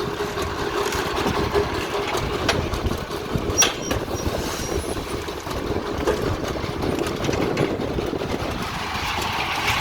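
An engine running steadily, with scattered ticks and one sharper knock about three and a half seconds in.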